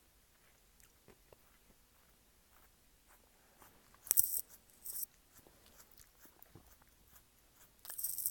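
Faint crunching as a cat chews a cheddar Pringles chip, then short bursts of high-pitched crinkling rustle about four and five seconds in and again near the end, as more chips are taken from the Pringles can.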